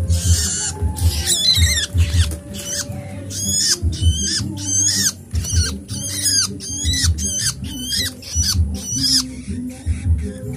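Hungry nestling songbirds begging for food: a quick run of shrill chirps that sweep in pitch, two or three a second, without pause.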